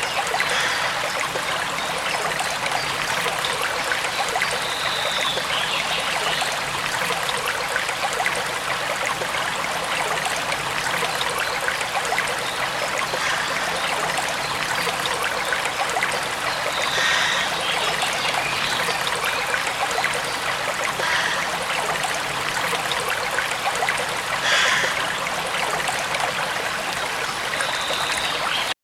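Flowing stream water making a steady rushing trickle, with a few brief higher sounds standing out over it.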